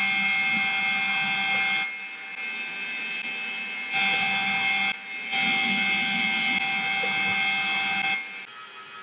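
Manual lathe parting off a steel workpiece: a steady high whine over a hiss of cutting. It drops abruptly to a quieter running sound about two seconds in, comes back at four seconds, breaks briefly near five, and falls away again just after eight.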